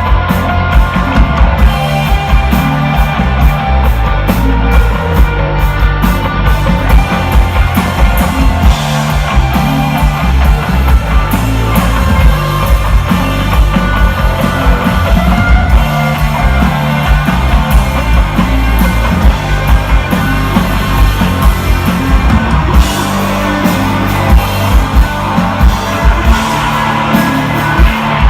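Live rock band playing loudly: distorted electric guitar over bass guitar and a steady drum beat, instrumental desert rock.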